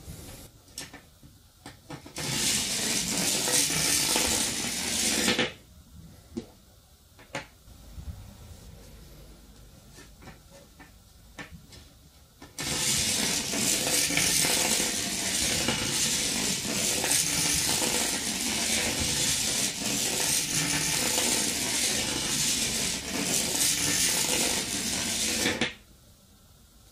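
Battery-and-magnet 'train' rattling as it runs along inside a bare copper wire coil, the magnets and battery scraping the wire turns. It runs twice: for about three seconds starting about two seconds in, then for about thirteen seconds from about halfway through, with a few separate clicks from handling the battery and coil in between.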